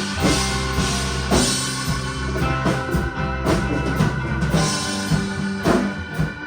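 A band playing an instrumental passage: drum kit with bass drum and snare hits under held chords, with no singing.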